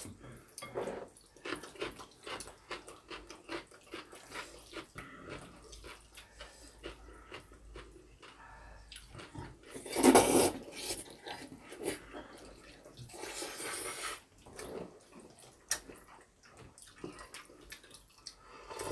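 Black-bean-sauce noodles (jjajangmyeon) being slurped and chewed, with small clicks and wet mouth sounds throughout. There is a loud slurp about ten seconds in and another long one around thirteen seconds.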